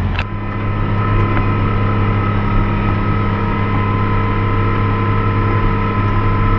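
Harvest-time farm machinery running steadily: a constant low engine drone with a steady high whine over it.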